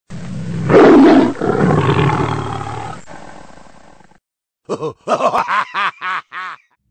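Intro sound effects: a loud, rough roar-like blast that peaks about a second in and fades away over the next three seconds, then after a short gap a quick run of about six short swooping tones.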